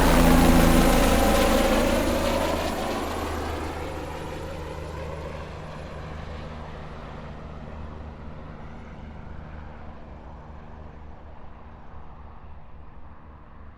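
Helicopter flying off after take-off: loudest about half a second in, with the sweeping pitch of a passing aircraft, then fading away over several seconds to a faint low hum.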